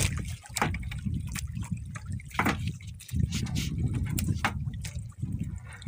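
Water dripping and splashing with scattered sharp clicks, over a steady low rumble.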